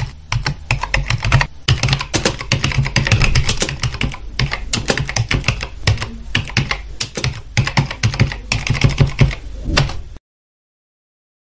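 Fast computer keyboard typing, a dense run of keystrokes that stops suddenly about ten seconds in.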